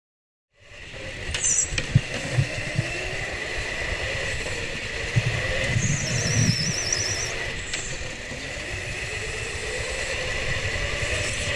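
Onboard sound of an indoor go-kart lapping: a steady high whine over a rumbling vibration, starting abruptly about half a second in. Tyres squeal in a warbling cry through a corner about six seconds in.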